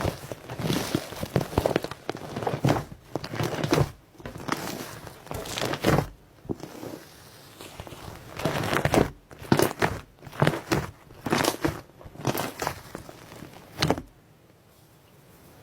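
Iceberg slime's hardened crust crackling and crunching as it is squeezed and pressed, in a run of separate crunchy squishes that stop near the end.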